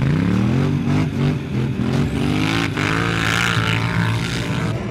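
A rally quad's engine revs up sharply as it pulls away from the start line. A little past halfway there is a short break, and a second vehicle's engine, a four-wheel-drive rally car's, revs hard as it launches from the start.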